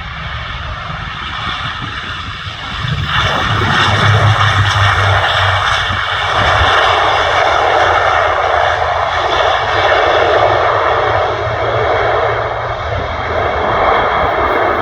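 Jet airliner's engines running loud as the aircraft passes close by, growing sharply louder about three seconds in, with strong wind rumbling on the microphone.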